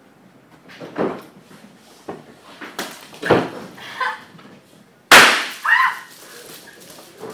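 Irregular sharp knocks and bangs, the loudest a sudden bang about five seconds in.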